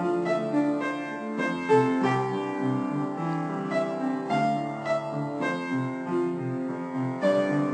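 Background piano music, notes struck one after another over a lower bass line.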